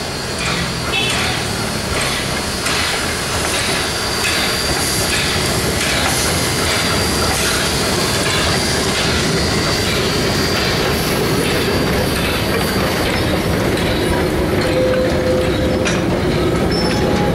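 Small steam locomotive and its vintage carriages passing slowly on a curve: a steady slow beat of exhaust chuffs and wheel clicks, with a thin high squeal from the wheels on the curve over the first part.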